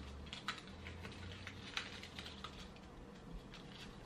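Faint, irregular crackling and rustling as the branches of a flocked artificial Christmas tree are bent and fluffed by hand.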